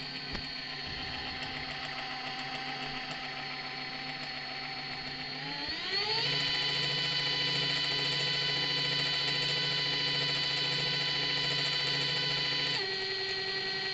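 Tongsheng TSDZ2 mid-drive e-bike motor running unloaded with a steady whine, rising in pitch about halfway through as it speeds up, holding there, then dropping back near the end. It makes a metallic noise that the owner, with the motor fresh out of the box, is unsure is normal.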